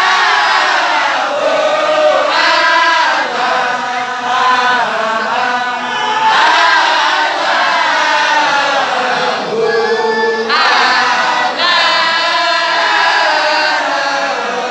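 A group of men chanting together in a Sufi wadifa (dhikr), many voices sustaining a continuous sung chant with no pauses.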